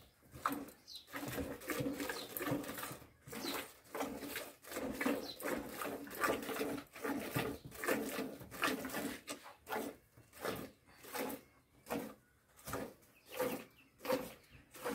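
A cow being milked by hand: squirts of milk in a steady rhythm, about two squirts a second.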